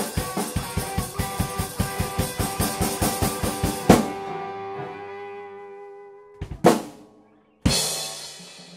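Live band of drum kit, electric guitar and keyboard playing fast, with rapid even drum strokes, then stopping on a loud final hit about four seconds in while the last chord rings out and fades. A couple more drum hits follow, and a last loud hit rings out near the end.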